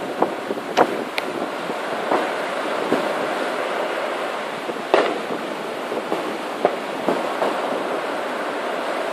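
Distant New Year fireworks going off in a scattered series of sharp bangs and pops, the loudest about five seconds in, over a steady rush of surf.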